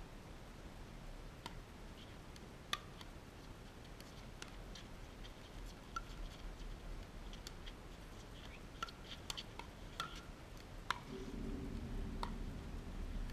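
Pickleball paddles hitting a plastic pickleball in a rally: faint, sharp pocks at uneven gaps of one to two seconds, some with a brief hollow ring.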